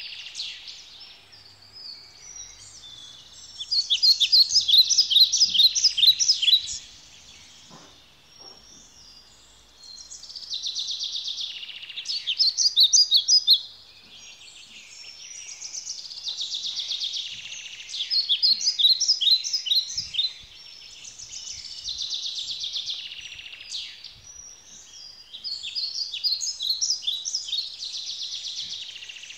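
A songbird singing: repeated phrases of rapid trilled notes, each lasting two to three seconds, with short pauses between them.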